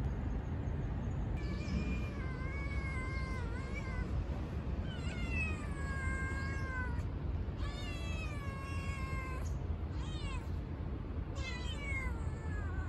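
Tabby kitten meowing repeatedly: about five high meows, most of them long and drawn out and falling in pitch, the fourth one short. A steady low background noise runs underneath.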